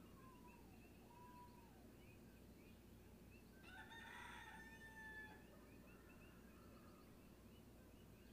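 A rooster crows once, faintly, about four seconds in, a held call of about a second and a half. Faint short high chirps repeat behind it throughout.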